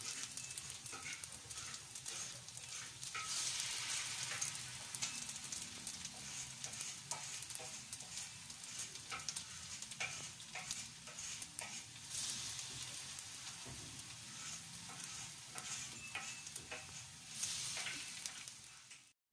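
Oil in a wok sizzling and crackling steadily as sugar-coated banana lumpia rolls (turon) shallow-fry on low heat, with louder spells of crackling now and then. The sound cuts off abruptly near the end.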